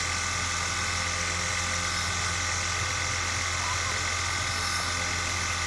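Steady electrical hum and buzz from the sound system, unchanging throughout, with a strong low hum and a thin buzzing overtone.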